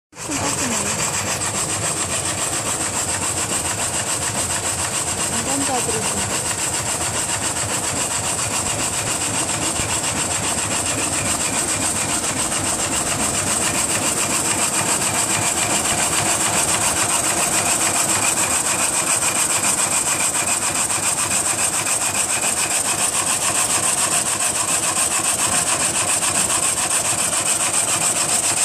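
A horizontal frame saw, a single-blade log saw set up in 1947, cutting through a log on its carriage: a steady, continuous sawing sound without breaks.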